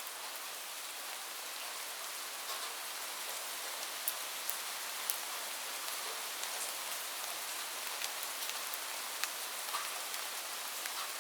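Steady rain falling, an even hiss with scattered sharper drop ticks landing close by.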